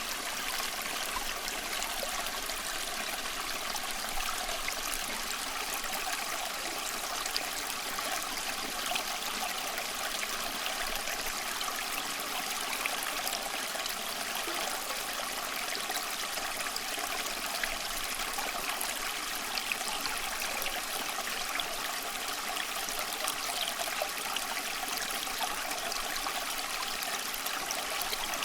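Flowing water, like a stream over stones: a steady rushing and trickling with many small splashes and no change in level.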